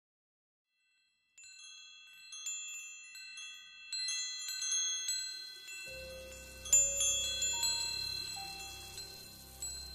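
Wind chimes tinkling: scattered high, ringing notes that overlap as they die away, starting about a second and a half in. Past the middle a low rumble comes in under them along with a few lower, sliding notes, and the loudest strike falls just after that.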